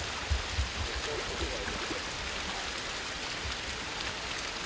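Shallow creek water running steadily over a riffle, with occasional low bumps underneath.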